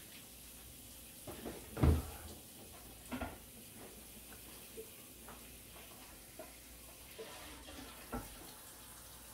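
A steady hiss with a few light knocks and taps over it; the loudest is a dull thump about two seconds in.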